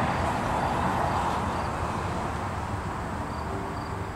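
Outdoor background: a steady rush of noise that slowly fades, with a cricket chirping faintly in a regular rhythm of about three chirps a second.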